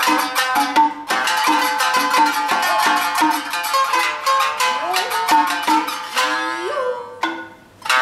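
Two shamisen playing a fast nagauta passage: rapid plucked notes with a short break about a second in, sliding notes in the middle, then a single pluck and a near-pause shortly before the end.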